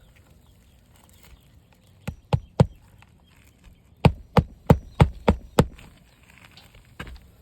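A hammer striking roofing nails during a 3-tab shingle repair: three quick blows, a short pause, then six more blows at about three a second.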